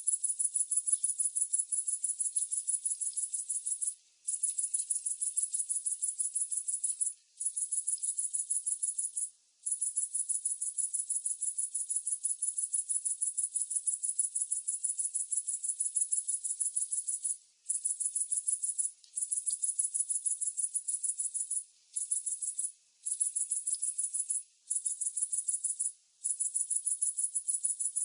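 A single cricket trilling: long, high-pitched runs of rapid pulses, broken by nine short pauses that come closer together in the second half.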